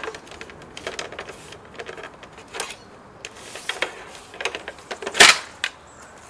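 Plastic clips and trim of a Mini Cooper S R56 front grille clicking and knocking as the tabs are pushed in and popped out, with one louder crack about five seconds in as the grille comes loose.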